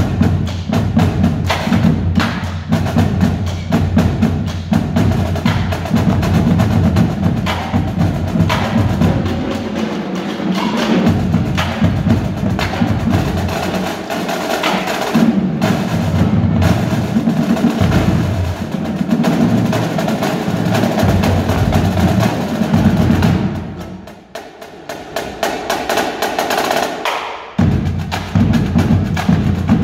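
High school marching drumline playing a cadence on snare drums and tenor drums, a steady stream of sharp strikes. About 24 seconds in it drops much quieter for a few seconds, then the full line comes back in loud.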